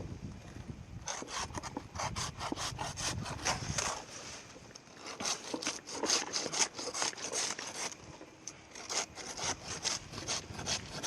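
Hand pruning saw cutting through palm, in quick back-and-forth strokes, with a short pause about four seconds in before the sawing resumes.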